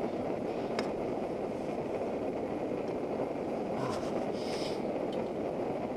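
Steady roar of a camping stove's burner running.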